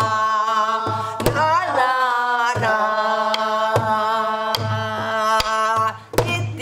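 A woman sings Korean pansori-style guum, wordless vocal syllables held in long, wavering notes. She beats along on a buk barrel drum: deep thumps and sharp stick cracks, roughly one a second.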